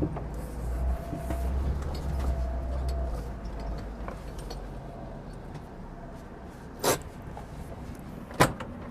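Leopard Black King Kong 4x4 driving slowly over rough ground: a low engine and drivetrain rumble that eases after about three seconds, then two sharp knocks near the end, about a second and a half apart.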